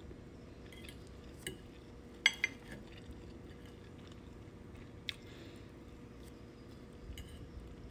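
A metal fork clinking and tapping against a ceramic plate a few separate times as food is cut and scooped, the loudest pair of clinks a little over two seconds in, over a faint steady hum.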